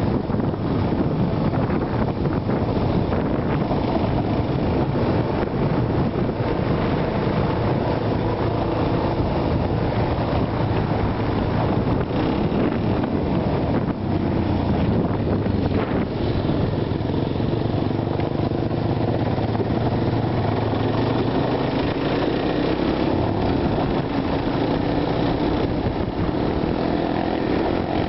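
ATV (quad bike) engine running under way on a dirt track, a steady rough drone mixed with rushing noise, the engine note climbing in the last few seconds.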